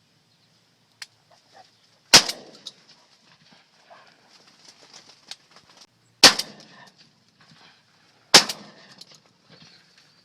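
Three shotgun shots fired at pigeons over decoys, about two seconds in, about six seconds in and again two seconds later, each with a short echo.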